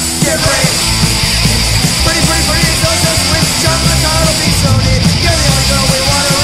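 Punk rock song played loud by a full band, with steady fast drum hits and a sung vocal line over it.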